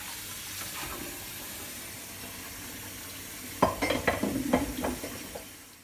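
Pan of boiling water with lazy cottage-cheese dumplings cooking in it, a steady bubbling hiss. About three and a half seconds in, a spoon knocks and scrapes against the pan six or seven times, then the sound fades out.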